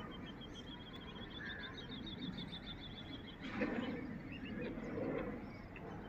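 Birds calling: a rapid trill of high repeated notes lasting about three seconds, with scattered short high chirps, over a low outdoor rumble. A brief rush of noise comes a little past halfway.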